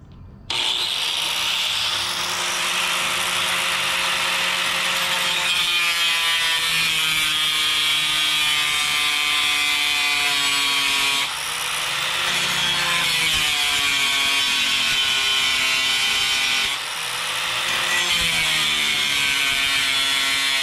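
Angle grinder spinning up about half a second in and then cutting through a metal truck belly plate, throwing sparks. Its motor whine sags in pitch and recovers several times as the wheel bites into the plate.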